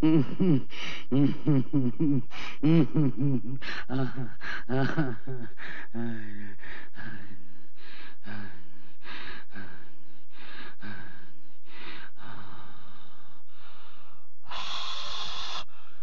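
A woman's voice recorded dry, making demonic non-verbal sounds: rapid pitched grunts, about two or three a second, give way about six seconds in to slower rasping breaths, and near the end comes a long harsh hissing exhale.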